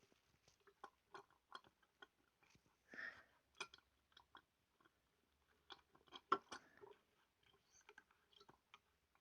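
Faint, irregular small clicks and taps, with a couple of soft rustles about three and six seconds in.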